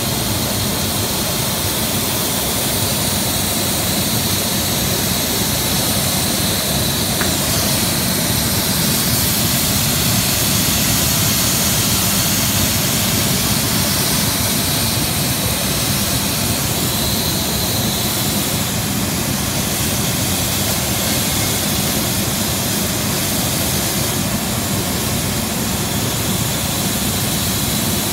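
Large fog machine with a fan turbine running at half power, blasting fog out in a loud, steady rush of air.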